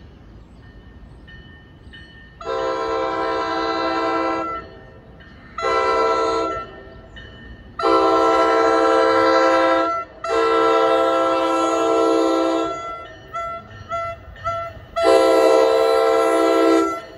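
Multi-chime horn of an approaching New Jersey Transit multilevel push-pull train sounding for the grade crossings at the platform. It gives a long blast, a short one, two long blasts back to back, a few brief toots and a final long blast.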